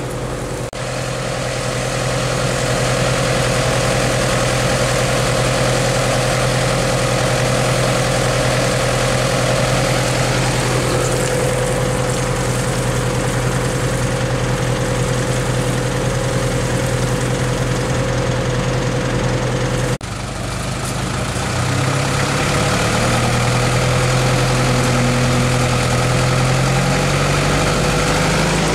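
Heavy truck's engine running steadily for most of the time. After a cut about twenty seconds in, it revs with a slowly rising pitch as the truck strains to pull through deep mud on a tow rope.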